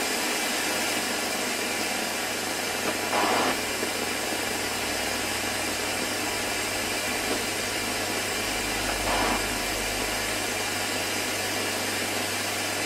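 Steady hiss with a low mains hum setting in about half a second in, as the mains voltage to a Roberts R747 transistor radio is slowly brought up. The set is already known to hum badly on mains.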